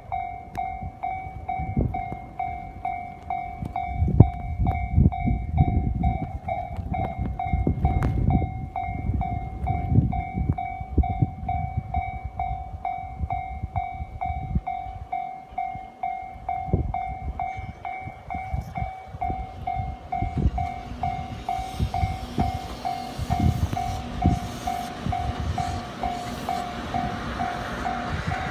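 Limited express Ariake, a JR Kyushu 787-series electric train, approaching and passing close by, its rushing noise building from about twenty seconds in. A level-crossing warning bell rings on and on in a steady repeating tone, and wind buffets the microphone with low thumps.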